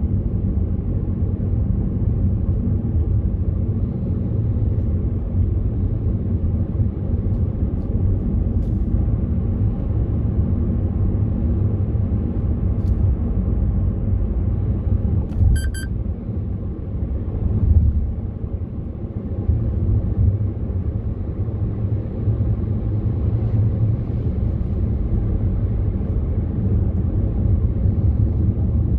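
Steady low rumble of a car's engine and tyres on the road, heard from inside the cabin while driving, with a short electronic beep about halfway through.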